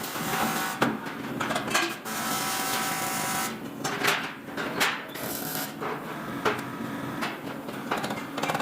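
Hand and power tool sounds on metal: scraping and rubbing broken by several sharp knocks, with a stretch of steady hiss a couple of seconds in.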